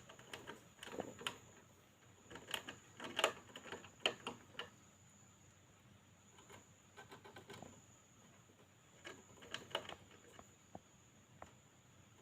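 A hamster making quick, irregular bursts of small scratching, clicking and crackling noises, busiest in the first five seconds and again about two-thirds of the way through.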